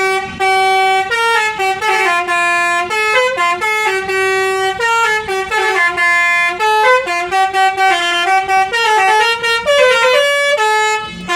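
Basuri V4 telolet horn on a tourist bus playing a melody: a long run of loud pitched air-horn notes that step up and down from one note to the next, with short breaks between phrases.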